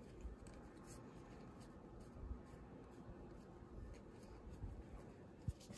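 Faint rustling and sliding of trading cards being handled and sorted, with a light tap near the end.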